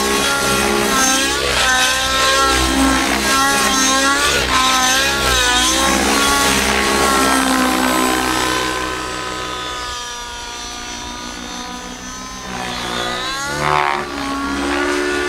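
O.S. 105 nitro engine with a tuned Powerboost pipe in a Velocity 90 RC helicopter, running hard in flight, its pitch rising and falling over and over as the helicopter is thrown through aerobatics. It grows fainter past the middle, then sweeps quickly up and down in pitch near the end and comes back louder. The engine is still running a little rich.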